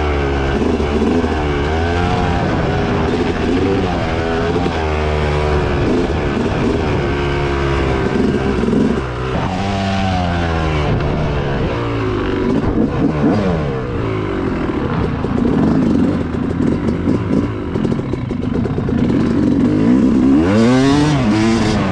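Dirt bike engine being ridden hard, repeatedly revving up and dropping back as the throttle opens and closes and it shifts gears. There is a patch of rattling knocks through the middle.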